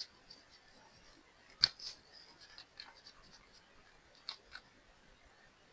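A few light clicks and taps from small nail product containers and tools being handled. One sharp click comes about one and a half seconds in and a pair of softer ones comes near the end.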